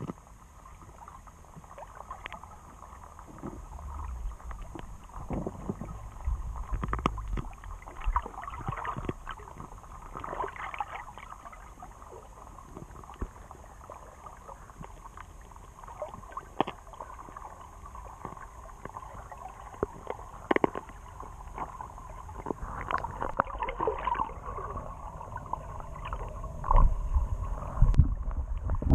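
Underwater sound picked up by a GoPro Session's microphone: a muffled, murky rumble of water with many scattered sharp clicks and knocks. It grows louder near the end as the camera is lifted toward the surface.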